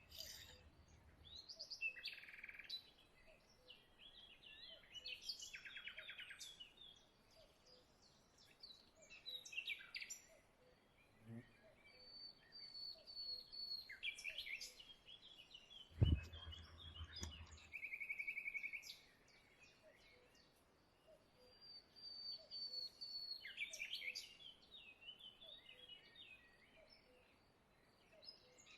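Small birds chirping and singing in repeated short trills and whistles, with a single dull thump about halfway through.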